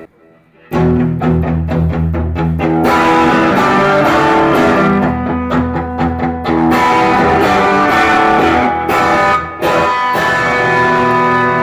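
Electric guitar played loud through a 1966 Supro Thunderbolt tube amp, riffing and strumming chords after about a second of quiet, with a short break about nine and a half seconds in. The amp is working again after repair of a fuse-blowing fault, putting out about 37 watts.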